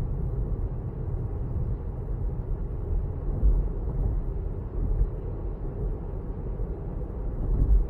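Steady low rumble of tyre and road noise inside a moving Tesla Model 3, an electric car with no engine note, with a few brief low bumps.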